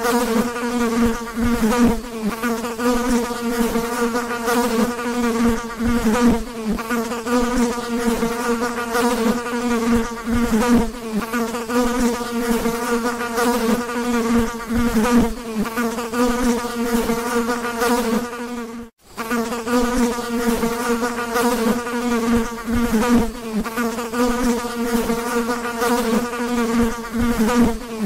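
Fly buzzing: a steady, low wingbeat hum with many overtones and a slight waver in pitch. It breaks off for a moment about two-thirds of the way through.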